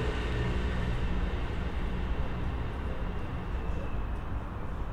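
Steady low rumble of city traffic, with no single vehicle standing out.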